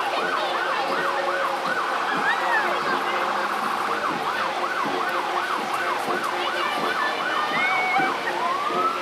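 Emergency vehicle siren in a fast yelp, rising and falling about three times a second. Near the end it changes to a slow rising wail.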